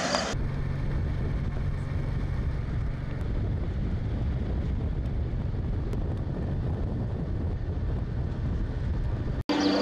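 Steady low outdoor rumble with no clear events, cutting off abruptly near the end.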